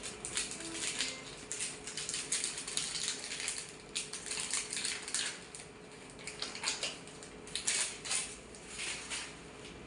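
Crackling and rustling of medical supply packaging and adhesive plaster being handled, in many short sharp bursts with small clicks and knocks.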